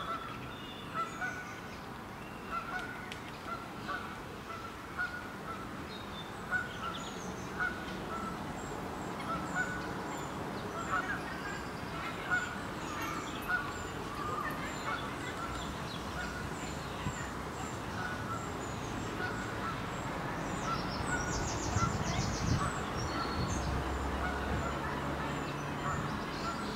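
Geese honking over and over, short calls about a second apart, with small birds chirping faintly above them.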